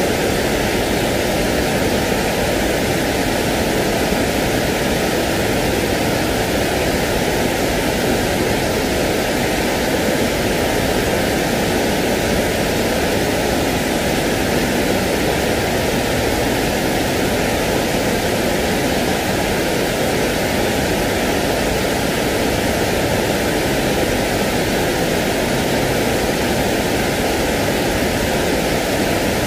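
Steady sleep noise of the pink-noise kind: an even, unchanging hiss with no breaks, swells or separate sounds in it.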